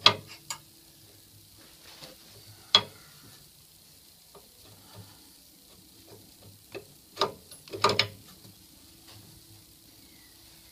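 Steel spanners knocking and clinking against the pipe fittings of a solar hot water circulating pump as the unions are undone. A few separate sharp metallic knocks: one at the start, one about three seconds in, and a short cluster around seven to eight seconds in.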